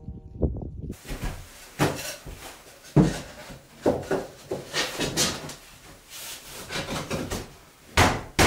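Laminate floor planks being handled and knocked together as they are fitted into place: a run of irregular wooden knocks and clacks, the sharpest about three seconds in and near the end.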